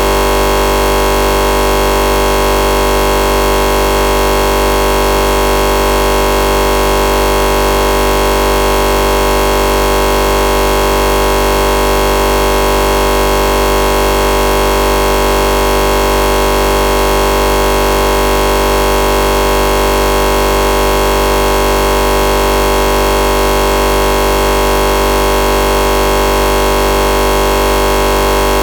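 Crashed PC's audio stuck in a loop as the computer freezes: a loud, harsh, unchanging buzz of many steady tones. The sound card is repeating the same tiny slice of audio over and over.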